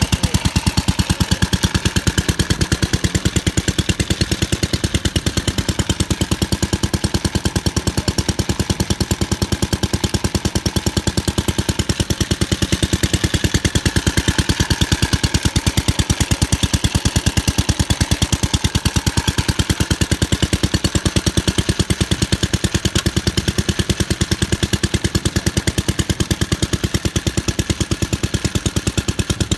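Vintage motorcycle engine running steadily after starting, with a fast, even firing beat and no change in speed.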